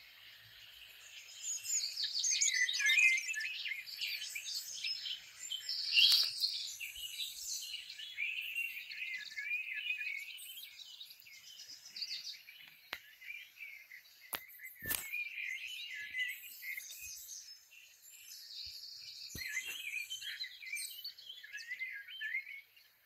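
Many small birds chirping and singing together in a dense, busy chorus of high chirps, with a few sharp clicks here and there. The birdsong cuts off suddenly near the end.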